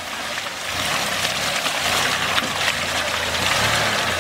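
Off-road 4x4 SUV engine pulling through deep mud while the tyres churn and splash through wet ruts. It gets louder about a second in.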